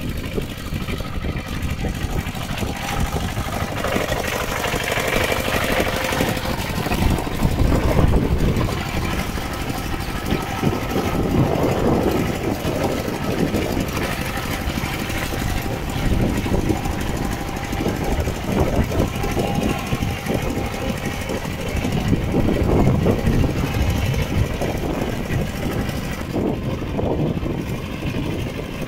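Two-wheel walking tractor's single-cylinder diesel engine running steadily with a rough, knocking beat as it pulls a spiked roller puddler through flooded paddy mud.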